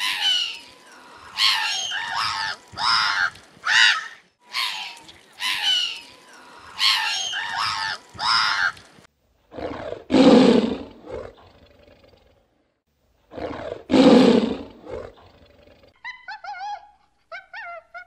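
Seabirds calling in a colony with repeated harsh squawks, then a tiger roaring twice, about four seconds apart, then short high chirps from a monkey near the end.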